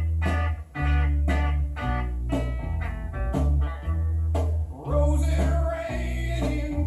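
Blues-rock song with guitar over a heavy, pulsing bass line.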